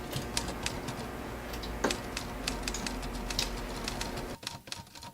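Typewriter keys striking at an irregular pace, each a sharp clack, over a steady low hum that drops away about four seconds in.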